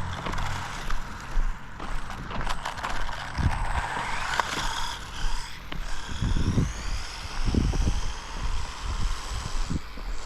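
Electric motor of a 1/14-scale RC car whining during a speed run, the whine rising in pitch about halfway through as it picks up speed, over tyre and surface noise, with several low thumps.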